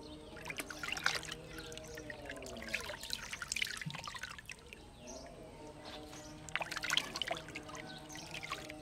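Water trickling and splashing in a plastic basin as hands scoop and pour it over a baby monkey's head, with many small splashes. A background drone of several tones runs underneath, sliding down in pitch a few seconds in and rising again later.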